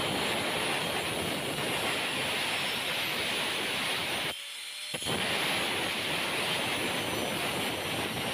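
Angle grinder with a cutting disc slicing through a coconut shell: a loud, harsh grinding rasp. About four and a half seconds in it breaks off for half a second, leaving only the grinder's motor running free, then the cut resumes.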